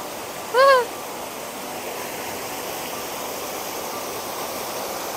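Steady sound of flowing river water. About half a second in, a short, loud pitched call rises and falls in pitch once.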